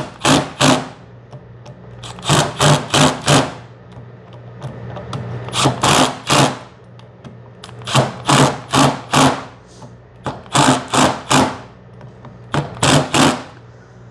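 Cordless power driver running a hex bit in short bursts of rapid, sharp strikes, about seven bursts with pauses between, driving down and tightening the screws that hold the cover plate on a Hemi cam phaser.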